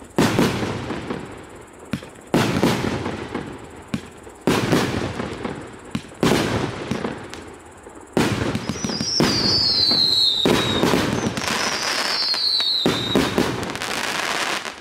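A 48-shot, 1.25-inch fireworks cake firing. Single shots come about every two seconds, each a sharp launch and burst that fades out. From about eight seconds in, shots fire in a rapid continuous barrage, with two falling whistles.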